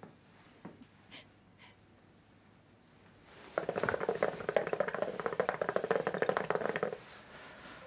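A few faint clicks, then about three and a half seconds in a fast drum roll starts and runs for a few seconds before stopping.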